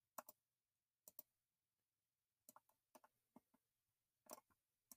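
Computer mouse clicking, a handful of soft, sharp clicks, several in quick press-and-release pairs, as text is drag-selected on screen. Between the clicks it is near silence.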